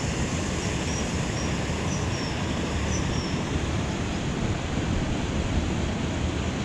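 Steady low rushing noise with no clear source, with a few faint high chirps in the first few seconds.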